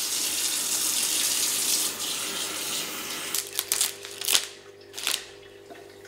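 Kitchen tap running into a glass vase for about three seconds, then several sharp snips of scissors cutting through flower stems.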